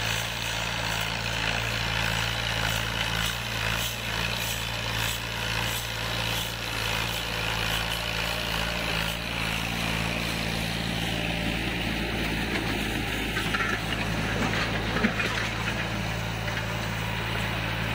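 Al-Ghazi tractor's diesel engine running steadily under load while pulling a disc harrow through dry, cloddy soil.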